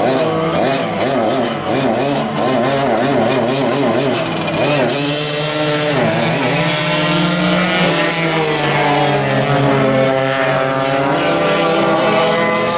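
Several vintage go-kart engines running together on track, their pitches rising and falling quickly in the first few seconds, then holding steadier from about halfway.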